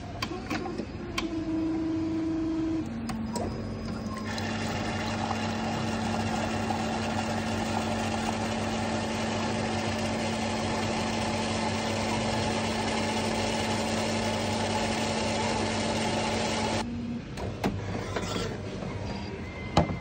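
Franke A600 bean-to-cup coffee machine running its brew cycle. First there is a short motor hum. Then a steady pump hum is joined by loud hissing and spraying as coffee pours into the mug, and this cuts off suddenly a few seconds before the end, followed by a few sharp clicks.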